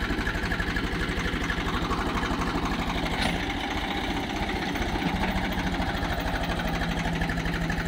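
Swaraj 735FE tractor's three-cylinder diesel engine running steadily with an even, fast chug. A short click is heard about three seconds in.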